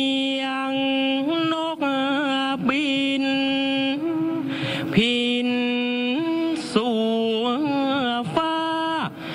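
Thai royal barge chant (kap he ruea), the verse in praise of the procession's barges. A single voice unaccompanied sings long held notes that slide and waver between pitches, with brief breaks for breath every two or three seconds.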